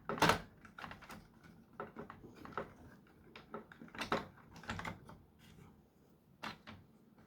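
Plastic parts of a Nerf toy gun clicking and clattering as it is handled and taken apart: irregular light clicks and taps, the loudest just after the start.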